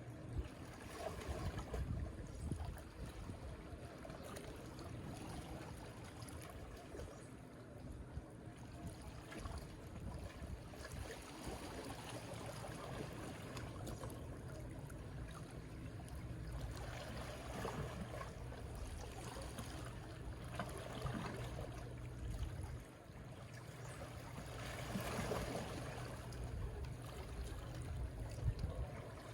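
Small, calm sea waves washing onto a beach, the wash swelling and falling back every few seconds, over a low steady rumble.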